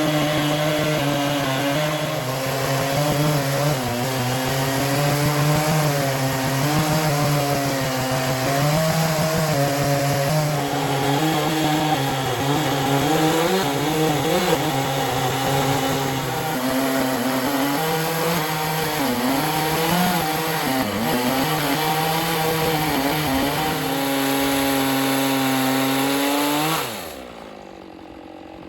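Chainsaw in an Alaskan chainsaw mill running at full throttle, ripping a slab through a white oak log, its pitch wavering as the mill is cranked along the cut. Near the end the pitch falls away and the sound drops to a much lower level.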